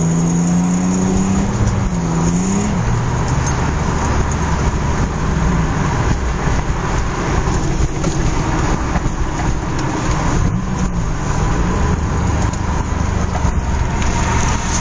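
1984 Nissan 300ZX Turbo's 3.0 V6 turbo engine pulling hard in third gear at full boost through a 3-inch turbo-back exhaust. The owner hears a rattle at full boost and hopes it is not detonation.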